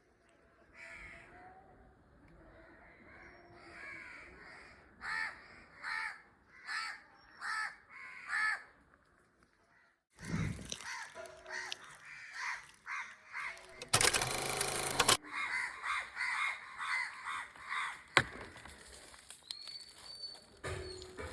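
Crows cawing over and over: a run of calls about two-thirds of a second apart, then more calls later. About fourteen seconds in, a loud rushing noise lasts just over a second.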